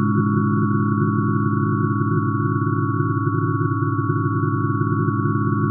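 Synthesized chord of steady sine tones, hydrogen's atomic spectral lines shifted down many octaves into hearing range. It is a low cluster of tones with a couple of higher tones above, held unchanging.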